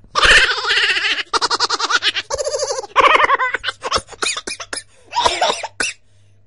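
High-pitched laughter in rapid ha-ha pulses, coming in several fits with short breaks, then trailing off into scattered short bursts.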